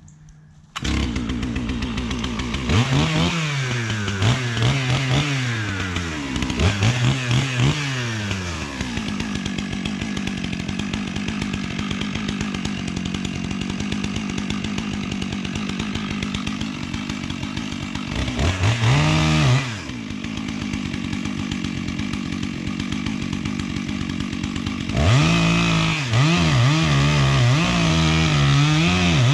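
Chainsaw engine starting up about a second in and revved up and down several times, then running steadily under load as it cuts the felling notch into a dead tree. It revs up and drops back once near the middle, and revs up and down repeatedly near the end.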